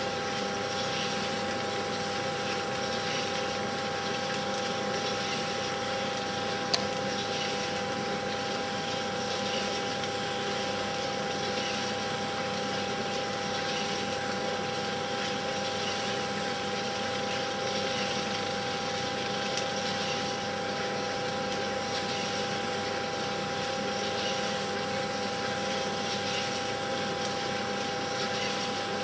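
Film projector running: a steady motor whirr with a constant hum that does not change with what is on screen, and one sharp click about seven seconds in.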